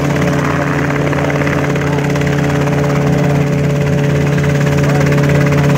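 Light helicopter's piston engine and rotor running steadily close by, a constant hum that holds one pitch.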